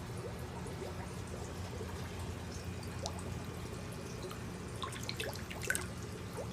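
Water trickling steadily, with small drips becoming more frequent near the end.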